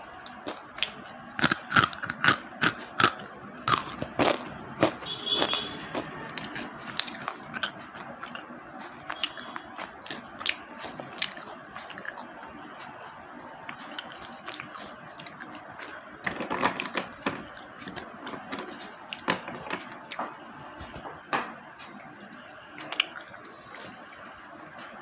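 Slate pencils being bitten and chewed: a run of sharp, dry crunches and crackles, most dense in the first few seconds and again about two-thirds of the way through, thinning to scattered chewing crackles in between.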